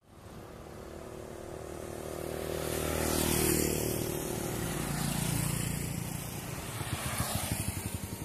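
Engine of a passing motor vehicle, growing louder to about three and a half seconds in and then slowly fading.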